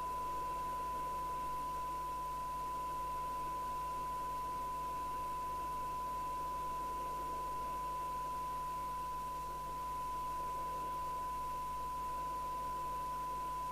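Steady 1 kHz test tone over a background of hiss, from the speaker of a Barracuda GT868 FM CB radio receiving a weak tone-modulated signal from a signal generator. This is the receiver's audio during sensitivity alignment against a SINAD meter.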